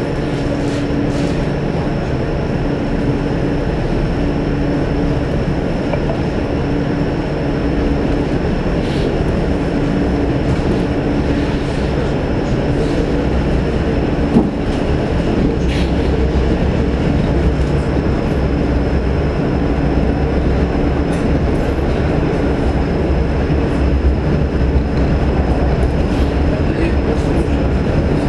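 Suburban electric multiple-unit train heard from inside the carriage while under way: a steady rumble with a constant hum, and a few isolated clicks from the wheels over the track.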